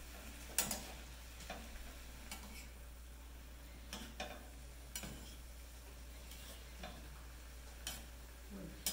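A spoon stirring food in a pan, knocking against the pan about eight times at uneven intervals, over a faint sizzle of frying in lard.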